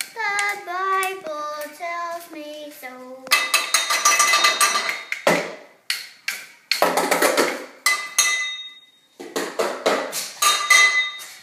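A child singing a short tune that steps downward, then a run of loud, irregular clattering and rattling with a faint ringing edge, in several bursts.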